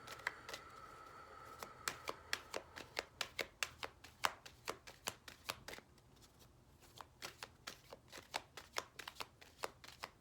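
Oracle cards being shuffled by hand: a quick, uneven run of card snaps and flicks that pauses briefly a little past the middle.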